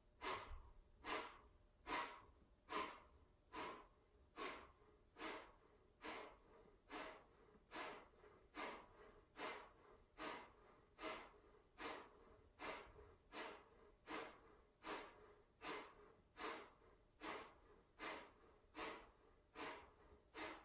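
Kapalabhati (breath of fire) breathing: a steady run of short, forceful exhales through the nose, a little more than one a second, each a quick puff that fades before the next. The belly pumps in on every out-breath.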